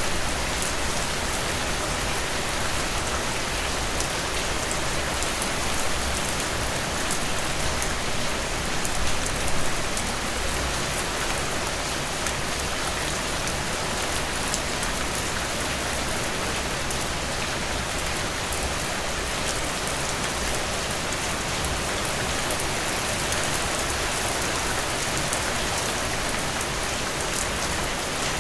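Steady rain falling, with drops pattering on a surface. It sounds the same throughout, apart from a couple of slightly louder swells a little after the middle.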